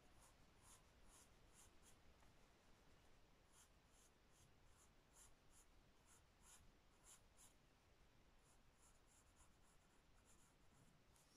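Faint pencil scratching on squared notebook paper: short light sketching strokes, about two a second in runs of several, with brief pauses between runs.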